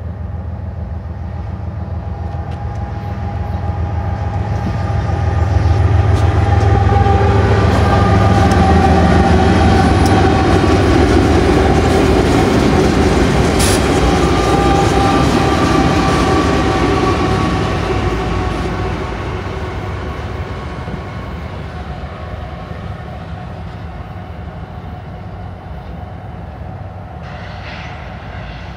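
Six GE diesel-electric locomotives (BNSF ES44C4s, Dash 9-44CWs and an ET44C4) running light with no cars, passing close by: engines rumbling, with a steady whine over the rumble and the sound of wheels on rail. It builds for the first few seconds, is loudest for about ten seconds as the units go by, then fades as they move away.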